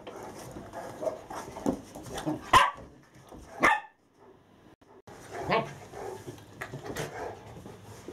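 Dogs barking while they play: a handful of sharp barks, the loudest two about two and a half and three and a half seconds in, with more a second or two later after a short lull.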